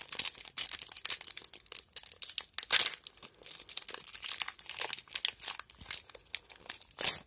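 Foil wrapper of a Pokémon trading-card booster pack crinkling and tearing as it is opened by hand, in a dense run of irregular crackles with a louder crackle near the middle and another near the end.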